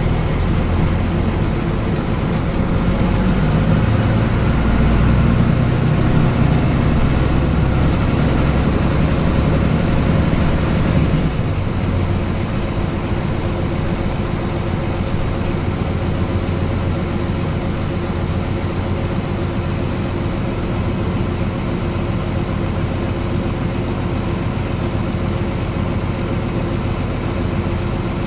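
Mitsubishi Fuso city bus's diesel engine heard from inside the passenger cabin, running with a heavier low rumble for about the first eleven seconds, then dropping suddenly to a steady idle as the bus waits at a red light.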